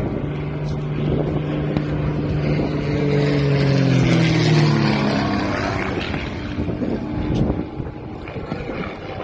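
Aircraft flying past: the engine drone and rushing noise build to a peak about halfway through, then fade as the pitch drops with the pass.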